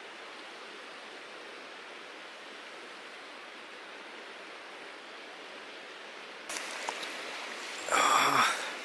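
Steady rushing of a mountain stream. Near the end, a short, much louder burst of noise lasts about half a second.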